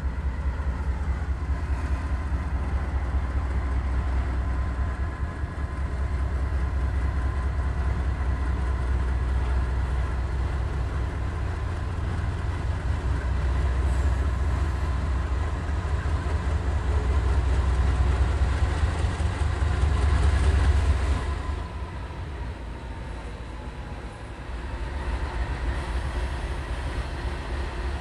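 A lead consist of GE C44-9W diesel-electric locomotives passing close by with a heavy, steady low engine rumble. The rumble swells and eases as the units go past, dropping off a little after about 21 seconds and building again near the end.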